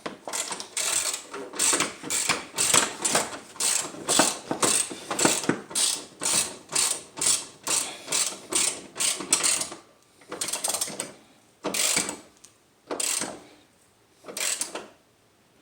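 Hand socket ratchet tightening the bolts of a car hood latch, its pawl clicking in steady back-and-forth strokes of about two to three a second. About ten seconds in the strokes thin out to a few separate ones with pauses between, as the bolts snug down.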